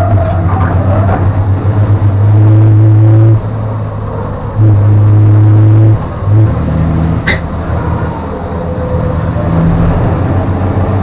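Cab-interior sound of a MAN racing truck's diesel engine pulling hard, its note dropping away twice as the throttle is lifted and coming back in between. A thin high whine rises and falls over it, and a single sharp click comes about seven seconds in.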